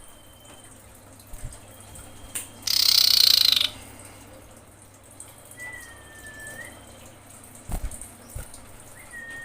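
Female common iora giving long drawn-out whistles, two of them, near the middle and at the end: the call of a female in breeding condition calling for a male. About three seconds in comes a loud one-second burst of hissing noise, and a couple of sharp clicks follow later.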